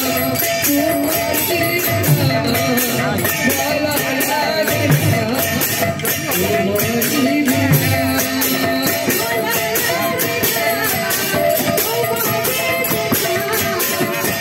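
Kirtan folk music: hand cymbals clashing in a quick, even beat over a barrel drum, with a held melodic line underneath.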